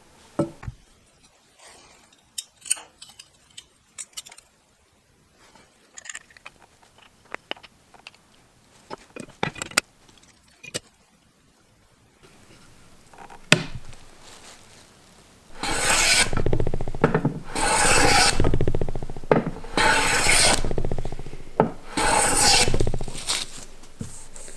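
Miller Falls No. 22 jointer plane, its iron freshly touched up, taking four long strokes along a wooden board in the second half, each a loud sustained shearing scrape as a shaving comes off. Before the strokes there are only scattered light taps and clicks.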